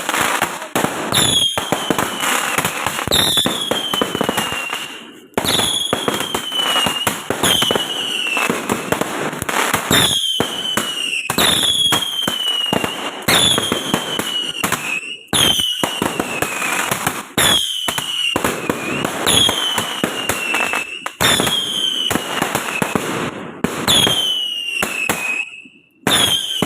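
Fireworks going off in a steady barrage: a falling whistle every second and a half to two seconds over a constant run of crackling bangs.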